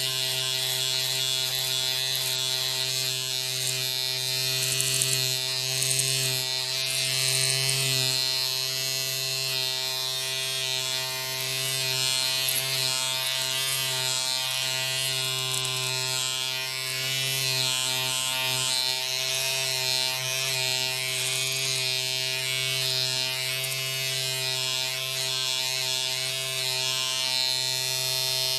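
Electric hair clippers running with a steady, continuous buzz, its level swelling and dipping slightly now and then.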